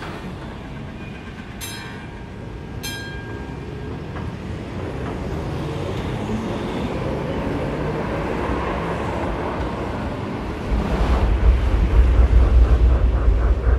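Electric tram rolling along wet street tracks, its running noise building gradually, with two short ringing tones a couple of seconds in. Near the end a loud deep rumble sets in and covers it.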